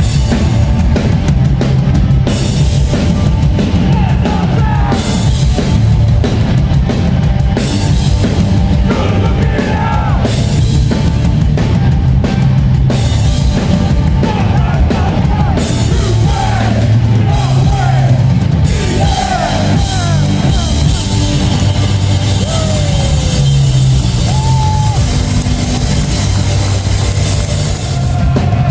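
Live hardcore punk band playing loud and fast, with the drum kit prominent.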